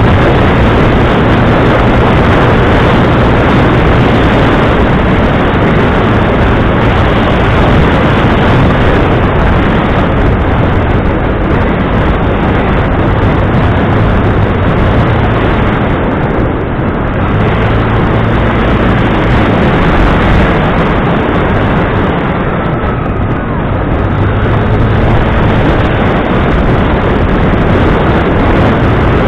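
An engine running steadily, its low drone under a constant loud rushing noise, as heard while riding on a motor vehicle or boat.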